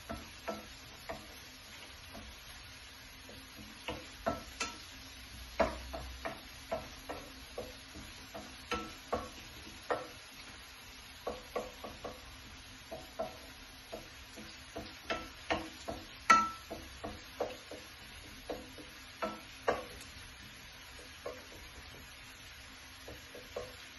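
Wooden spoon stirring a herb and spice mixture frying in a non-stick frying pan: irregular taps and scrapes of the spoon against the pan, some with a short ring, over a faint sizzle.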